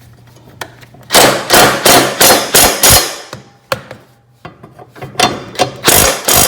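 Impact driver hammering in two short bursts as it runs a mower blade nut tight with a 1-inch socket. The first burst comes about a second in and lasts about two seconds, and the second comes near the end.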